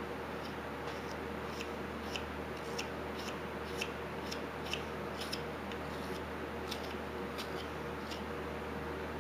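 Whittling knife paring small cuts from a wooden cat figure: irregular short, crisp clicks of the blade slicing through the wood, about one or two a second, over a steady low hum.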